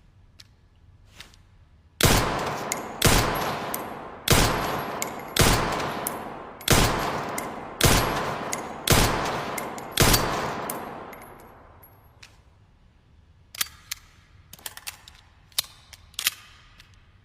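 Handgun firing eight single shots about a second apart, each with a long echoing tail. A few seconds after the last shot comes a run of small sharp mechanical clicks.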